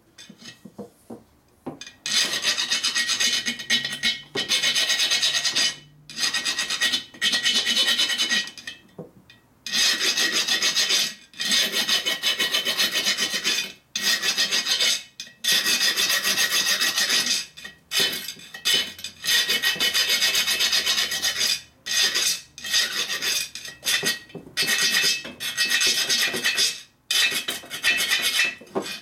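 Hand file rasping across the hard cooling fins of a 1942 Harley-Davidson XA flathead cylinder, knocking down the sharp cast edges. The strokes come in runs of a second or two with short pauses, and a thin steady ring sounds under them.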